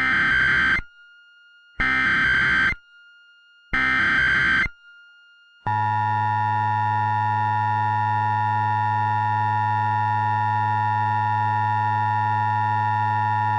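Emergency Alert System tones: three short bursts of digital SAME header data about a second apart, then the steady two-tone attention signal for about nine seconds, which cuts off sharply. Together they announce an EAS alert, here a required monthly test.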